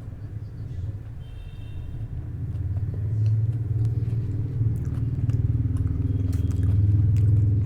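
A low rumble that builds over several seconds, is loudest near the end, then starts to fade, with a few faint clicks over it.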